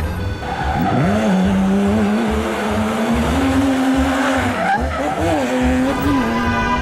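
Vehicle engine revving up and holding a steady pitch, dipping and climbing a few times near the end, over a low pulsing beat.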